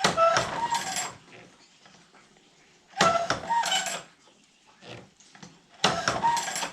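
Woodland Mills tooth setter working on a steel bandsaw-mill blade: three metallic clanks about three seconds apart, each a short clatter that rings briefly, as the setter is worked to set individual teeth that did not set on the first pass.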